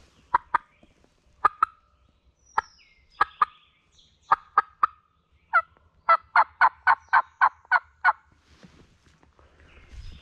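Hen-turkey calling on a turkey call, loud and close: sharp single notes in ones, twos and threes, then an even run of about eight yelps, about four a second, ending about eight seconds in.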